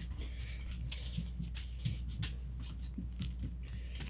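Trading cards being handled and slid into thin plastic penny sleeves: soft rustling with small scattered clicks, over a steady low hum.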